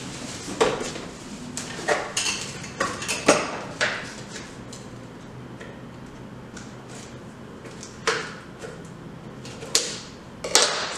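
Packaging being cut and unwrapped: scissors snipping and wrapping rustling around a boxed pole part, in irregular short crackles and clicks, several in the first few seconds, a quieter stretch, then a few more near the end.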